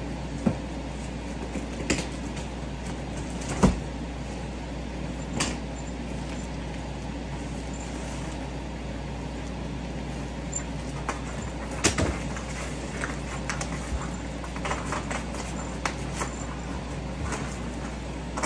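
Scattered knocks, taps and scrapes of a large cardboard shipping box being handled and opened, the loudest knock a little under four seconds in, with a run of small clicks in the last few seconds. A steady low hum runs underneath.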